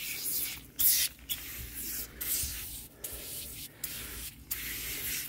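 Foam degreaser being sprayed onto a lawn tractor's engine bay: a hissing spray in bursts, broken by several brief pauses.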